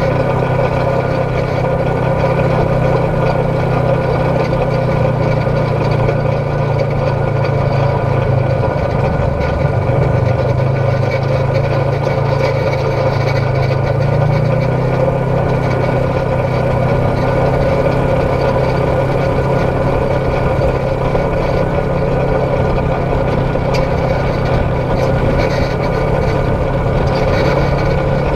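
Polaris RZR XP 1000 side-by-side's twin-cylinder engine running steadily while driving. The engine note dips slightly about eight seconds in and steps back up in pitch about halfway through.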